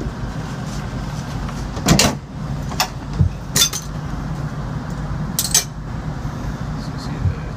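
Steel hand tools clinking and knocking on a Copeland compressor's cylinder head and bolts: a handful of sharp metallic clinks spread a second or so apart, over a steady low hum.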